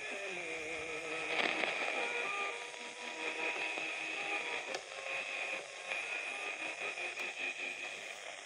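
Philips Philettina portable radio being tuned by hand between stations: hiss and static with whistling tones that slide down and waver in pitch as the tuning knob turns, over a steady high whine.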